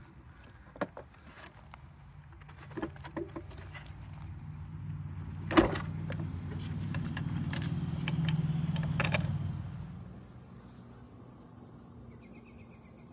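Metal clinks and clanks of a miniature railroad car's coupler and chain being handled, with one sharp clank about five and a half seconds in. A low rumble of the 7¼-inch gauge train builds through the middle and fades out at about ten seconds.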